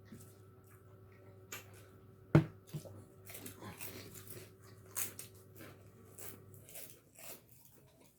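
Person chewing and crunching food, with scattered clicks and one sharp knock about two and a half seconds in.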